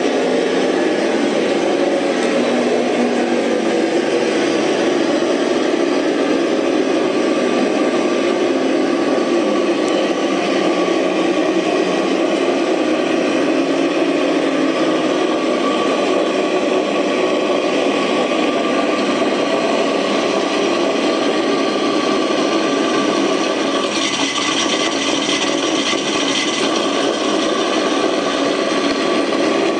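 Synthetic Mustang Cobra engine sound from a speaker-based engine-sound system in a Ford Bronco, a steady drone. For a couple of seconds, about 24 seconds in, a sharper hiss is added on top.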